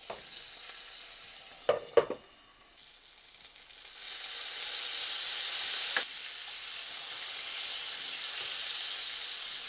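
Abalone sizzling in butter and sauce in a frying pan, the sizzle growing louder about four seconds in. Sharp taps of chopsticks against the pan come twice about two seconds in and once about six seconds in.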